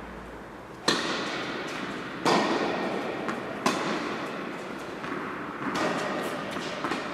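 A tennis rally: the ball is struck by rackets and bounces on the court in a few sharp hits, the first three the loudest, each echoing for a long time in a large indoor hall.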